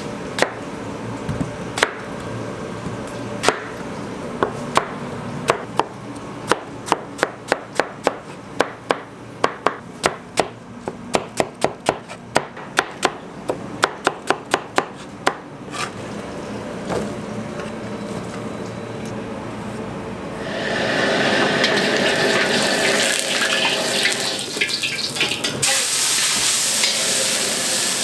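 Chinese cleaver chopping onions on a cutting board: a run of sharp knocks, several a second, that stops about sixteen seconds in. From about twenty seconds in, oil sizzling loudly in a hot wok, getting louder near the end as the vegetables go in.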